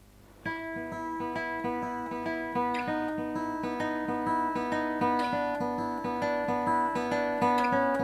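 Chinese-made copy of a Martin D-45 dreadnought acoustic guitar being played: the piece starts about half a second in, with picked melody notes over a steady run of repeated bass notes, about four a second. Heard through a lapel microphone.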